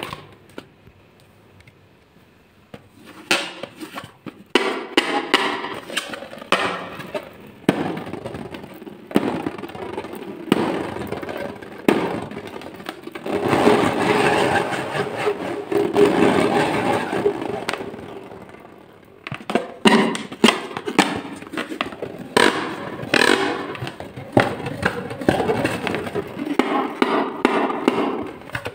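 Fingers handling a rubber balloon: irregular taps, knocks and rubbery scrapes, with a longer stretch of steady rubbing and squeezing around the middle.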